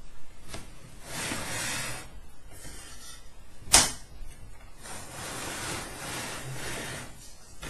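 A spirit level being slid and turned on an aluminium 3D-printer bed plate: two stretches of rubbing and scraping, with one sharp knock a little under four seconds in.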